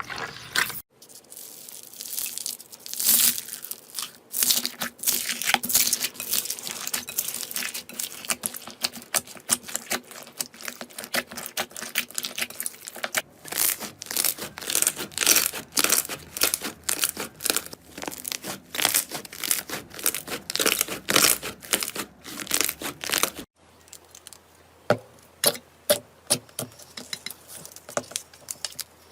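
Slime being squeezed, stretched and pressed, with dense, irregular crackling and popping, in several short clips that change abruptly about a second in, around halfway, and near the end.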